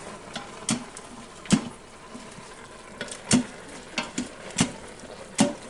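A cooking utensil knocking and clinking against a pan, about eight irregular taps, over a faint steady sizzle of the stir fry cooking.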